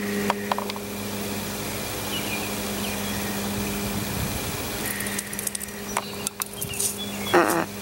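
A motor running steadily nearby, a low even hum, with a few small clicks and a brief rustle near the end.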